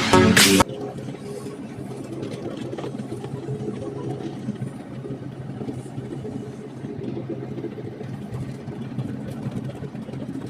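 Electronic music cutting off about half a second in, then an excavator's engine running steadily.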